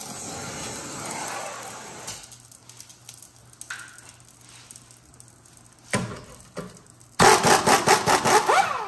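A torch hissing at first, then a couple of knocks, and about seven seconds in an impact wrench rattling loudly in quick pulses for about a second and a half: it is spinning the heated, seized stabilizer link nut off.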